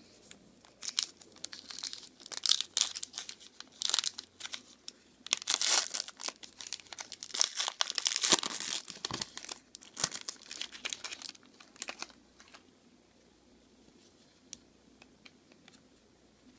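Foil trading-card pack wrapper being torn open and crumpled in the hands: a dense run of crackling tears and crinkles that dies away after about twelve seconds, leaving a few faint ticks of the cards being handled.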